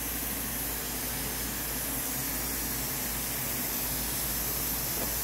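Steady hiss of a pot of noodles at a boil on a gas stove.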